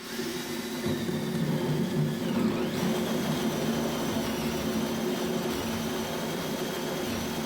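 Ryobi drill driving a 2-inch hole saw through a Milescraft Drill90PLUS right-angle gear attachment into a 2x4: a steady motor whir with a whine that rises in pitch about three seconds in, then holds.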